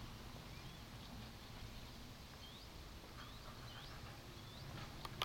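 Small birds chirping faintly, a string of short rising notes mostly in the second half, over a low steady outdoor rumble. A couple of sharp clicks come near the end.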